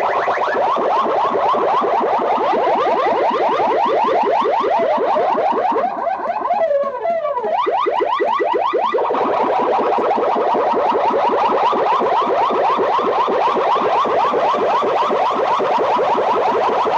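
Loud electronic siren-like sweep tones repeating several times a second, blasted through banks of horn loudspeakers on a competition sound-system rig. The level dips briefly about six seconds in, where a falling glide cuts across the sweeps.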